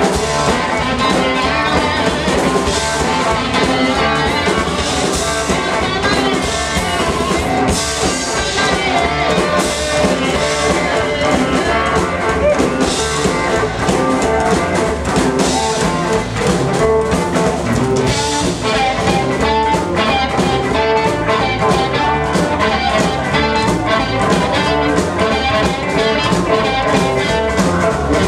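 Live blues band playing an instrumental passage: harmonica played into a microphone over electric guitar, upright double bass and drums.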